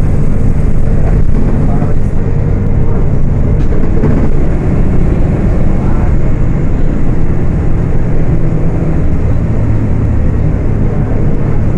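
Diesel engine of a Volksbus 18.280 OTS city bus running under way, a steady low drone that shifts slightly in pitch as it pulls.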